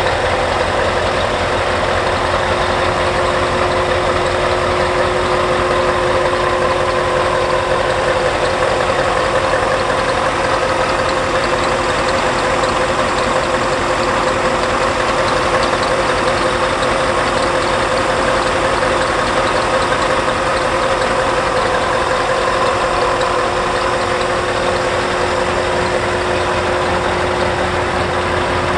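Scania R730's V8 diesel engine idling steadily.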